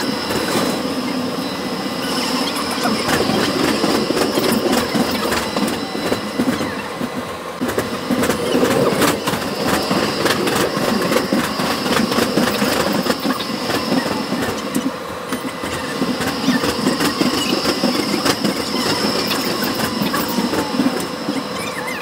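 Inside a moving tram: steel wheels running on the rails with a continuous rumble, rattling and clicking, under a steady high whine that drops out briefly twice.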